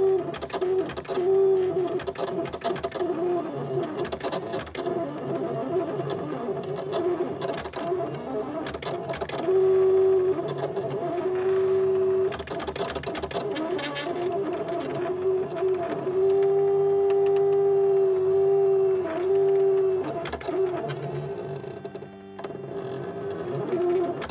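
Silhouette Cameo 3 cutting machine running a print-and-cut job: its motors whine as the blade carriage and rollers move back and forth around the printed images. The tone holds steady on the longer straight moves and wavers and breaks with each change of direction, with light clicks throughout.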